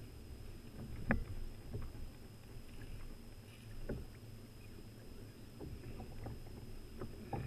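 Low rumble of water and wind around a sea kayak, with a few short sharp knocks on the boat, the loudest about a second in.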